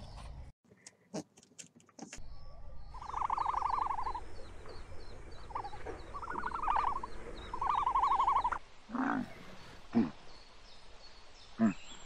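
Animal calls: three loud, trilling calls in the middle, then a few short, sharp calls near the end.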